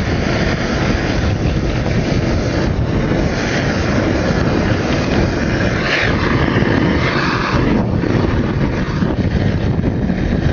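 Homemade air-atomized kerosene burner firing: a steady roar of flame and rushing air, with the hiss getting brighter for a couple of seconds about six seconds in. It is a first test firing that still needs work, with unburnt kerosene dripping from the nozzle.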